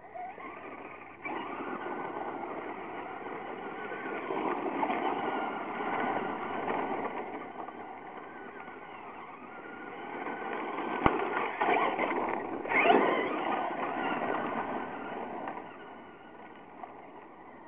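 Traxxas Slash radio-controlled short-course truck driving over loose gravel: its motor and tyres on the gravel make a steady rushing noise that swells and fades as it speeds up and moves about, with a few sharper bursts about eleven to thirteen seconds in, and dies down near the end.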